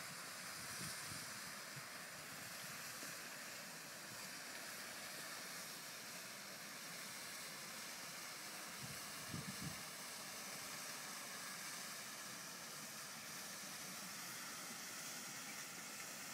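Faint, steady hiss of background noise with no clear engine note, broken by a couple of brief low bumps about nine seconds in.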